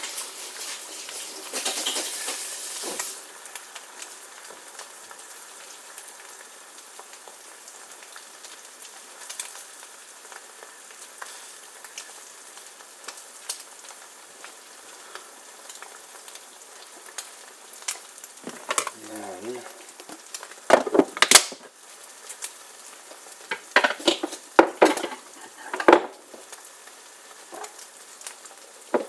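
Eggs and buttered rye bread frying in a pan, a steady sizzle. In the last third, several sharp clinks and knocks of utensils or cookware are the loudest sounds.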